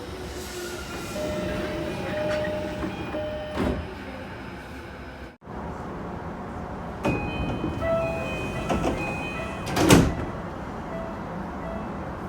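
Japanese train door chimes, two recordings back to back: each a short repeating electronic chime sounding as the sliding doors close, ending in a knock as the doors shut, the second one louder.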